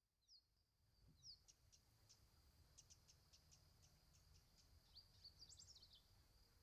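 Faint wild bird calls: a few short downward-slurred whistles, then a series of sharp, irregular ticks and a quick tumbling cluster of notes near the end. Underneath runs a thin, steady high tone and a low rumble.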